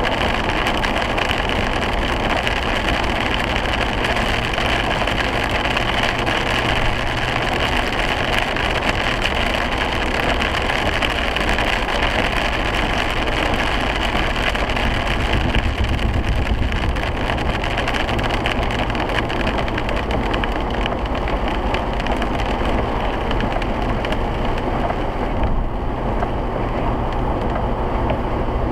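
Steady cabin road noise of a 2008 Ford Crown Victoria Police Interceptor driving at speed on a wet highway: tyres hissing on the wet pavement under engine and wind noise, with a brief swell in the low rumble about halfway through.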